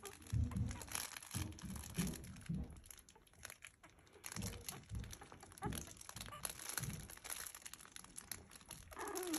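A fabric crinkle toy crackling irregularly as newborn Havanese puppies crawl and push against it, with soft bumps in between.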